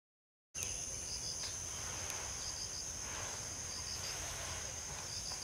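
Insects shrilling in a steady high drone, with a short three-note chirp repeating about every second and a half. The sound begins abruptly about half a second in.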